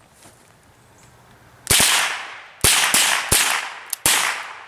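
Semi-automatic Mossberg International .22 rifle firing five shots in quick succession, the first about a second and a half in and the other four about half a second apart, each shot trailing off in a short echo.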